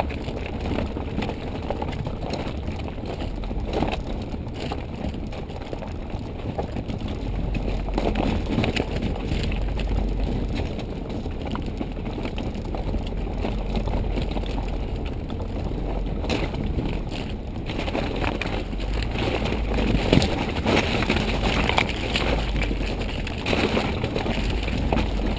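A vehicle driving over a rough gravel riverbed: a steady low rumble with constant rattling and crunching from the stones.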